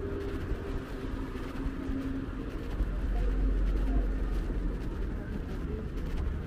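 City street traffic: cars running along the road beside the sidewalk, a steady low rumble that grows louder about three seconds in.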